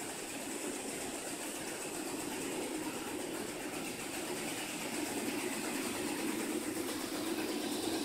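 Tube mill running steadily as a DN300 steel pipe feeds through its forming rolls and chain drive: a continuous mechanical drone with a hiss over it, growing slightly louder in the second half.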